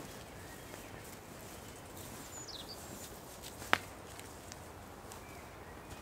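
Footsteps through the forest with one sharp snap about two-thirds of the way in, and a short falling bird chirp a little before it, over a steady hiss of wind.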